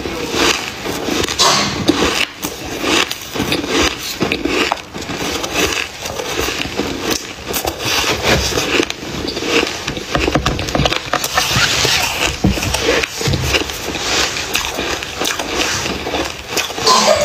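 Freezer frost being chewed, a dense run of crunching and crackling, with a metal spoon scraping through the bowl of frost.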